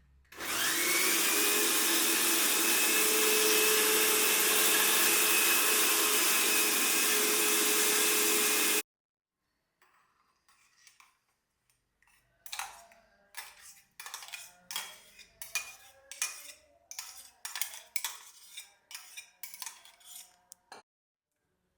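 Electric mixer grinder running for about eight seconds, spinning up at the start and then cutting off abruptly. After a pause comes a run of quick knocks and scrapes, roughly two a second.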